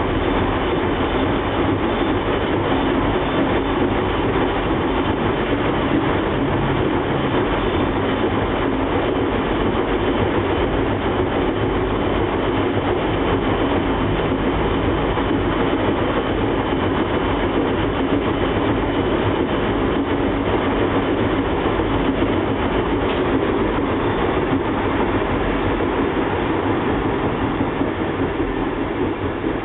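IPSO 181 commercial washing machine spinning its drum, a loud, steady mechanical run with a deep low rumble underneath.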